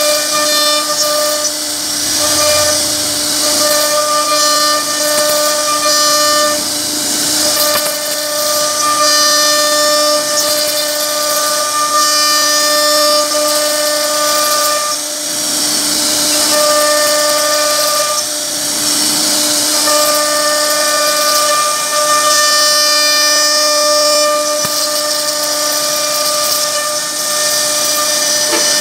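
CNC router spindle whining steadily at a high, even pitch as its bit carves relief patterns into a wooden bed panel, with the hiss of the cut under it. The whine weakens briefly twice around the middle.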